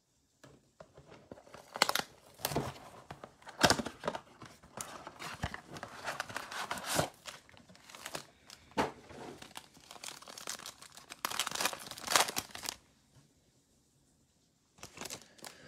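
Cardboard blaster box torn open and foil-wrapped trading-card packs crinkling as they are pulled out and handled: irregular tearing and rustling, pausing briefly near the end.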